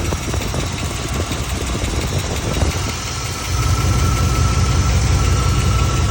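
The 5.7-litre TBI V8 of a 1991 Chevy K1500 idling steadily. Its rumble gets louder about three and a half seconds in.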